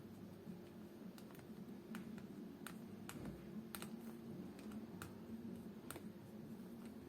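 Scattered light clicks and taps from paint-mixing tools and small bottles during leather colour mixing, irregular and about a dozen in all, over a steady low hum.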